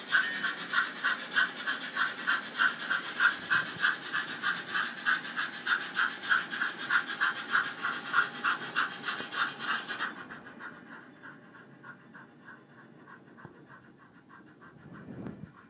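HO-scale 4-4-0 model steam locomotive and its train running, with a steady rhythmic chuffing of about three beats a second. About ten seconds in the sound drops sharply and loses its hiss, and the beats carry on faintly.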